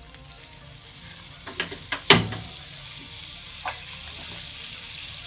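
Margarine melting and sizzling in a hot non-stick wok: a steady hiss that slowly grows. A few sharp clicks break in, with the loudest, a sharp knock, about two seconds in.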